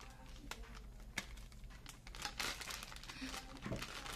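Foil pouch of brownie mix crinkling as it is handled and tipped over a mixing bowl: irregular crackles, with one sharp click about a second in and a dense stretch of crinkling about halfway through.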